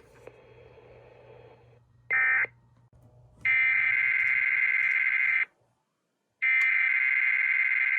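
Emergency Alert System SAME data tones: one short buzzy burst about two seconds in, then two long bursts of about two seconds each, a second apart. These are the end-of-message code closing the statewide test and the header of the next alert.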